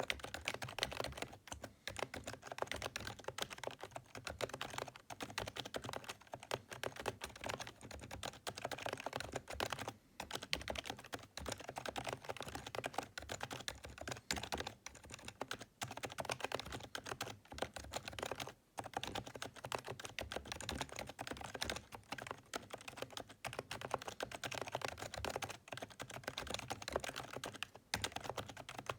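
Continuous typing on a PFU HHKB Professional 2 Type-S keyboard with Topre electro-capacitive switches: a fast, steady stream of key strokes with a few short pauses. The Type-S is the silenced version, a sound the uploader calls quiet enough for office use.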